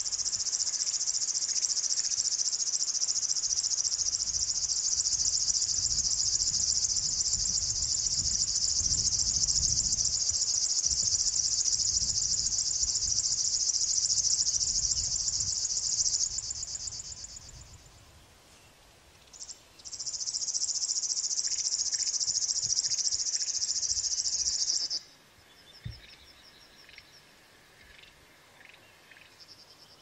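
River warbler singing its insect-like reeling song: a fast, even, high-pitched buzz held for about sixteen seconds before fading, a short burst, then a second reel of about five seconds that stops abruptly. Faint chirps follow near the end.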